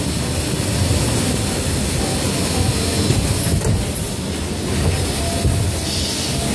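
Servo-driven volumetric filling and dosing machine running, a steady low mechanical rumble with a couple of light knocks about halfway through.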